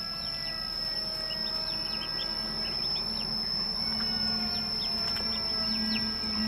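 Muscovy ducklings peeping, many short high peeps overlapping in quick succession, over soft background music.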